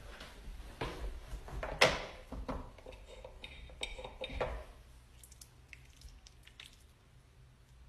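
Clicks and knocks of a bottle being handled, with a squishy squirt as product is dispensed from it into the palm about four seconds in.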